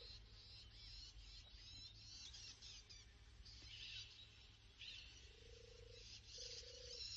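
Faint woodland birdsong, high chirping and twittering throughout, with a low trilled call repeated in short pairs from about five seconds in. A steady low hum runs underneath.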